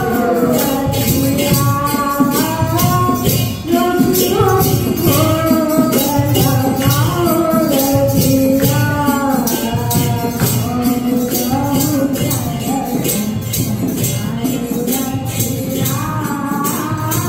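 Music: a song with a sung melody over a steady jingling percussion beat, about three strokes a second.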